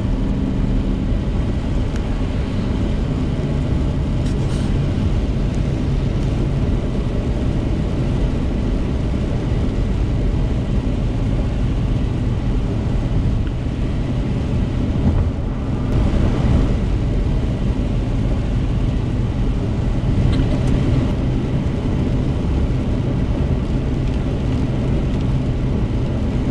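Steady cabin noise of a car driving on a rain-wet highway: engine and tyre noise on wet pavement, swelling briefly a couple of times a little past the middle.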